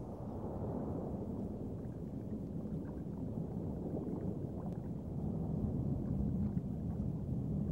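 Low, muffled underwater rumble: a steady wash of deep water noise with no distinct events.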